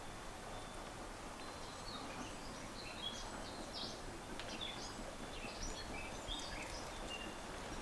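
Small birds chirping, many short high calls from about a second and a half to seven seconds in, over a steady hiss of outdoor background noise.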